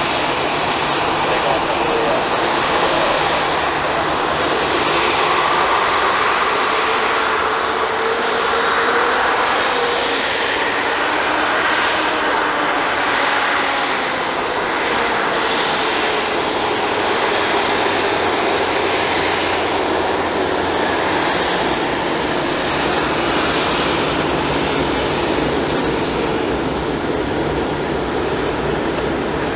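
Boeing 787-9's Rolls-Royce Trent 1000 turbofan engines running at taxi power as the airliner taxis past: a steady jet engine sound with a faint tone that drifts up and down in pitch midway.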